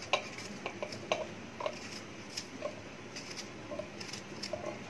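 Small kitchen knife cutting a tomato held in the hand, with faint irregular clicks and soft squishes as the blade goes through and pieces drop into a steel mixer-grinder jar.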